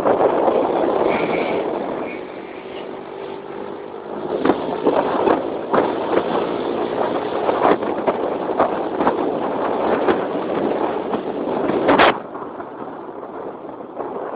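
Motor scooter engine running close by, its level rising and falling, with several sharp knocks over it and the loudest knock about twelve seconds in.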